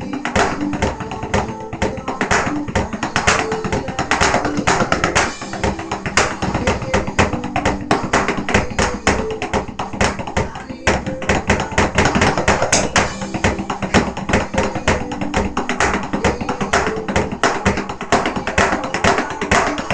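Drumming on an electronic drum kit, sticks hitting the pads in quick, continuous strokes, played along to recorded music.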